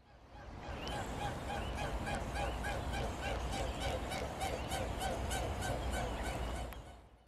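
Waterfowl calling in a rapid series of short repeated calls, about three a second, over a low rumble; the calls fade in at the start and fade out near the end.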